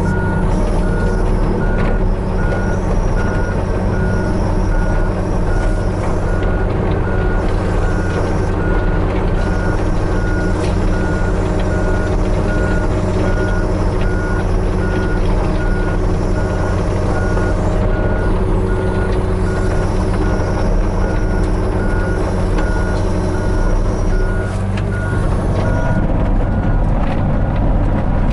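Hitachi 35U mini excavator's diesel engine running steadily at work, with a rapid, evenly repeating warning beep through nearly the whole time.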